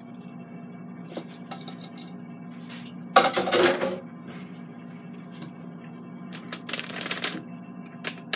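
A ceramic bowl with a spoon in it handled on a kitchen countertop: a loud scraping clatter about three seconds in, then light clicks and knocks as it is lifted, over a steady low hum.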